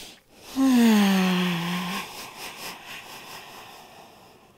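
A woman's long voiced sigh on an exhale, its pitch sliding down, trailing off into breathy air that fades over the next couple of seconds.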